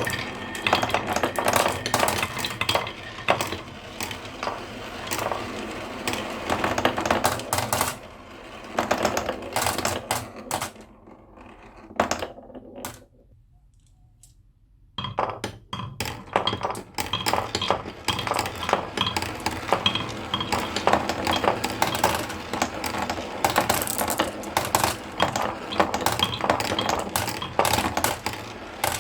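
Marbles rolling and clattering down a marble run: a dense stream of rapid clicks and clinks. The clatter dies away to near silence about twelve seconds in, then starts up again about fifteen seconds in.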